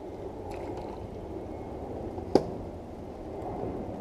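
Steady low rumble of wind on the microphone with water around a boat, a few faint ticks about half a second in, and one sharp knock about two and a half seconds in.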